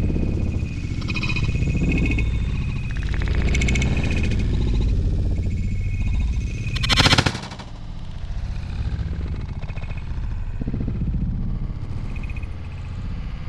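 Wind rumbling on the microphone, then a single shot from an over-under shotgun about seven seconds in, the loudest sound, with a short echo.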